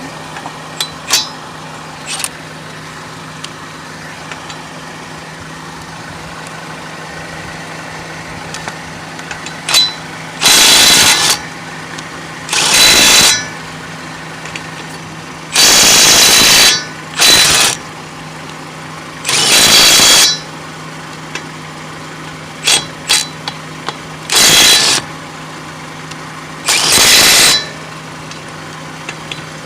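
Milwaukee M12 Fuel Stubby 1/2-inch cordless impact wrench, run in mode 3, zipping lug nuts off in seven short bursts of about a second each, with small clicks in between.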